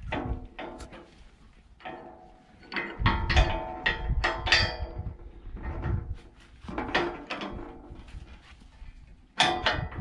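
Steel tubes and brackets of a homemade firewood processor's log loader clanking as they are handled, each knock ringing on briefly like struck metal. The knocks come irregularly, busiest about three to five seconds in and again near the end.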